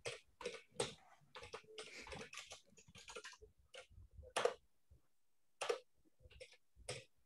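Computer keyboard typing: irregular quick keystrokes in runs, with a short pause about five seconds in.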